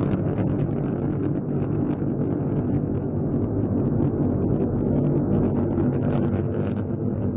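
Rocket engine exhaust rumbling steadily, heard from the ground, with a crackle running through it and wind on the microphone.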